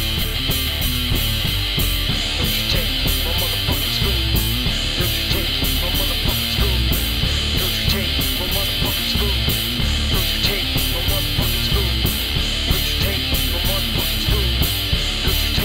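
A rock band playing an instrumental passage: electric guitars and a drum kit on a steady beat, with no singing.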